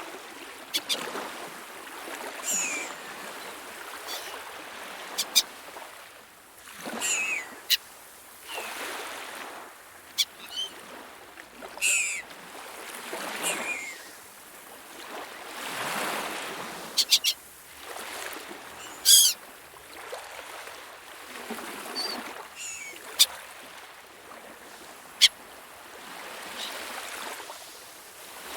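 Seagulls calling: many short, high, sliding cries scattered throughout, a few of them sharp and loud, over a wash like waves that swells and fades every few seconds.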